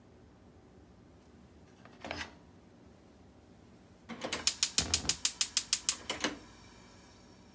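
Gas stove burner's igniter clicking rapidly, about seven sharp clicks a second for some two seconds, until the burner lights, followed by a faint hiss of the gas flame. A short soft knock comes about two seconds in, before the clicking.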